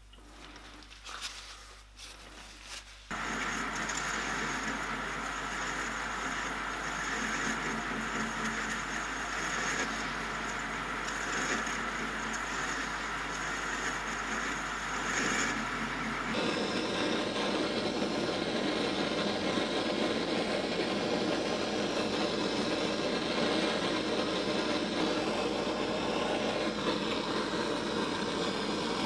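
A few light handling clicks, then a metal lathe starts up about three seconds in and runs steadily while the copper chimney cowl is polished. About halfway through, the sound cuts abruptly to a different, steady rushing noise.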